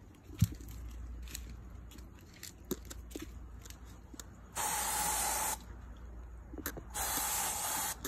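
Aerosol insecticide can spraying in two bursts of about a second each, the first about halfway in and the second near the end, with a faint whistle in the first. Small scuffs and clicks between them.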